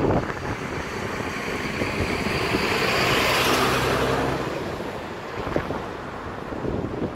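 A vehicle passing: its engine noise swells to a peak about three and a half seconds in, then fades.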